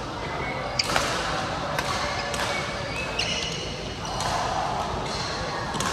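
Badminton racket hitting a shuttlecock, two sharp cracks about a second in, ringing in a large hall. Short high squeaks from court shoes on the floor come and go, over faint voices.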